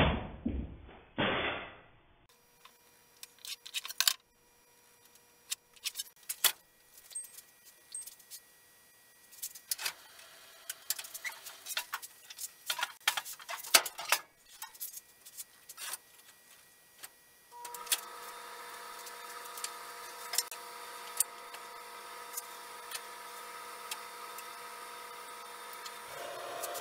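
Scattered knocks, clicks and clatter of boards and tools being handled. About two-thirds of the way in, a steady machine hum with a faint whine starts.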